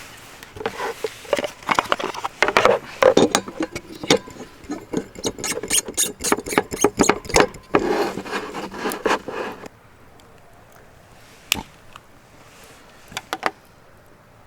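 Close-up handling noises: a dense run of clicks, rubbing and scraping for about ten seconds, then a couple of single sharp knocks.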